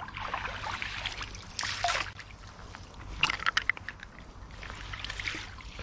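Water splashing and sloshing as a big hooked chub thrashes at the surface close in. There are louder splashes about two seconds in and again about three and a half seconds in.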